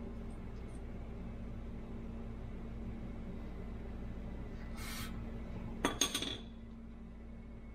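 A steady low hum, then a short scrape about five seconds in. About a second later comes a quick run of light metallic clinks from a ratchet and the metal drain plug being handled over a drain bucket.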